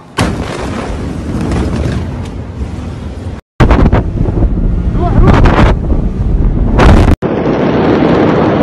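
Beirut port explosion heard through phone microphones: a sudden loud boom a moment in, then heavy rumbling that overloads the microphone, with sharp cracks. A steady rushing noise follows. Abrupt cuts between clips break the sound twice.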